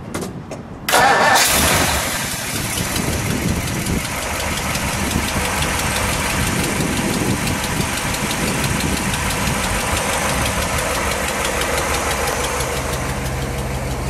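A 1957 Ford Thunderbird's 312 cubic-inch V8 fires up with a sudden loud burst about a second in. It then settles into a steady idle.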